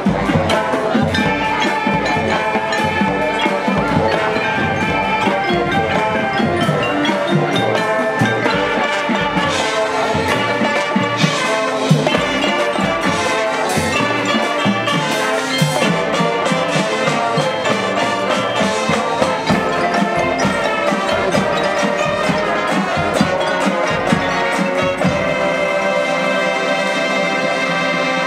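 Marching band playing a piece on the field: brass over a drumline, with front-ensemble mallet percussion ringing through.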